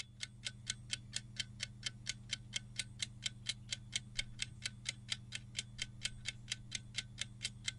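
Clock-style countdown-timer sound effect ticking evenly about four times a second, over a faint steady low hum, while the quiz answer time runs down.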